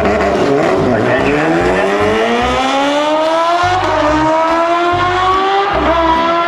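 Racing engine revving up through the gears. Its pitch climbs steadily, dropping at a gear change about half a second in and again near four seconds.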